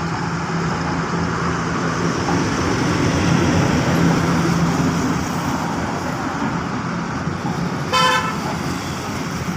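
Motor vehicle engine running steadily amid traffic noise, with one short horn toot about eight seconds in.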